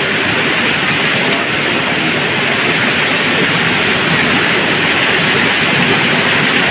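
Steady rush of flowing river water, an even hiss that holds level without a break.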